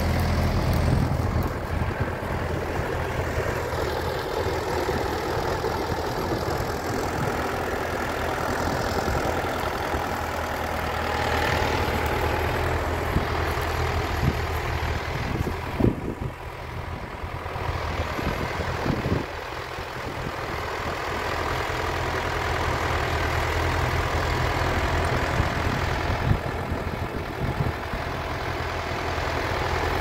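Vintage tractor engine running steadily as it pulls a mounted plough, loud and close at first, then further off from about halfway. A couple of sharp thumps come near the middle.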